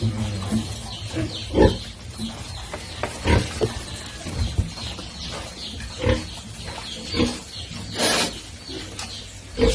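Piglets grunting in short, separate grunts about once a second, close to the microphone. One louder, hissing burst comes about eight seconds in.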